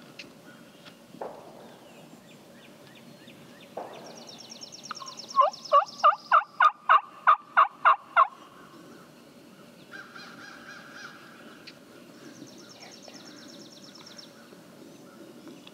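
Turkey calling: a run of about eleven loud, evenly spaced notes, about four a second, lasting some three seconds near the middle. Faint, high songbird trills come before and after it.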